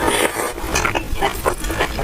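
Close-miked chewing of crispy oil-skin buns: a rapid, irregular run of crunches and wet mouth smacks.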